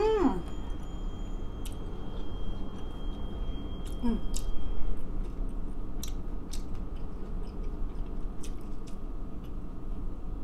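A person chewing a mouthful of meatless burger, with soft scattered mouth clicks, and a hummed, falling "mmm" at the start and a shorter one about four seconds in.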